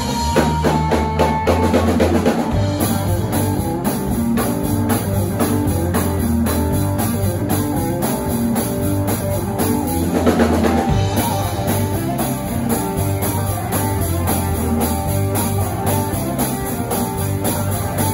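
A live blues-rock band playing: electric guitar, bass guitar and a drum kit keeping a steady beat.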